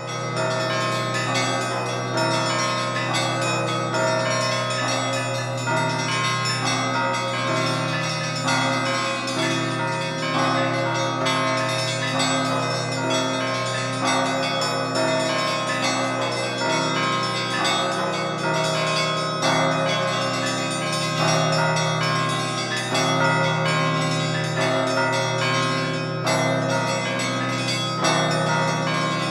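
Russian church bells ringing a peal: a repeating pattern of strokes on the higher bells over the steady ring of the lower bells.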